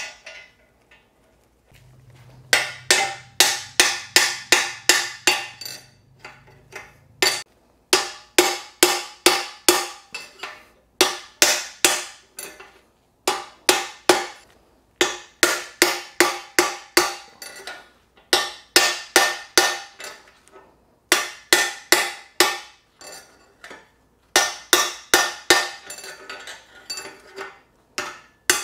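A 2-pound sledge striking a steel drift again and again, driving a steering-neck bearing race out of the frame through a bearing race remover tool; each blow rings a little. The strikes come in runs of several, about three a second, broken by short pauses.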